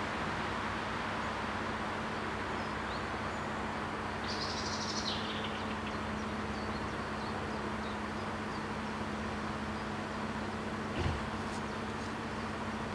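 Steady outdoor background hiss with a faint low hum, a bird's short high trill about four seconds in, and a single low thump near the end.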